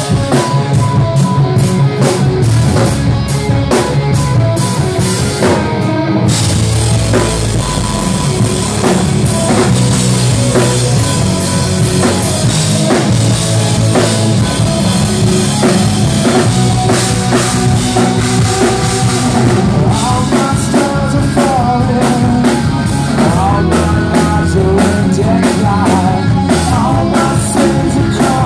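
Rock band playing live and loud: drum kit with electric guitars and bass at the opening of a song. About six seconds in, the top end fills in and the sound thickens.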